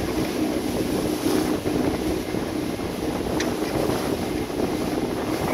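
Wind buffeting the microphone on the deck of a sailing catamaran under way, over the rush of the sea past the hulls, with a steady low hum underneath.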